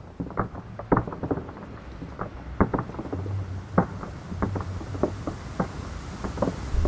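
Rain: irregular sharp drops tapping and crackling several times a second over a low rumble and a soft hiss. The rumble and hiss build up near the end.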